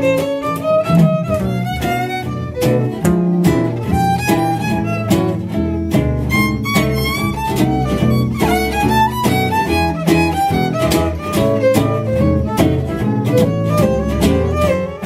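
Western swing band playing an instrumental break: a fiddle carries the melody with sliding notes over rhythm guitar and bass keeping a steady swing beat.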